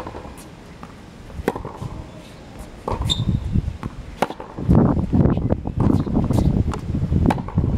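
Tennis ball struck by racquets and bouncing on a hard court during a baseline rally: sharp pops roughly every second. From a little past halfway, a loud low rumble covers much of it.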